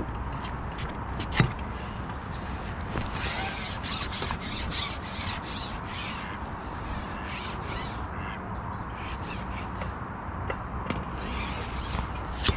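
Rustling and scraping handling noises with scattered sharp clicks and light knocks, over a steady low rumble.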